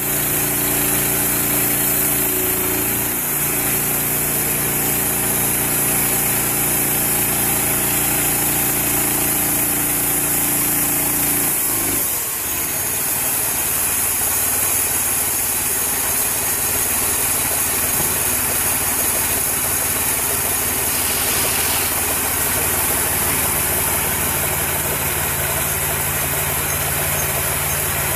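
Engine of a homemade bandsaw mill running steadily while milling sally wattle, with a high hiss over the engine note. The engine's note shifts lower about twelve seconds in.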